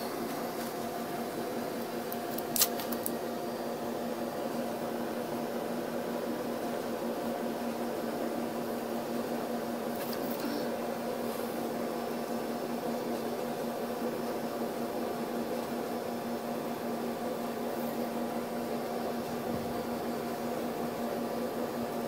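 Steady hum of a small electric motor, with one sharp click a couple of seconds in.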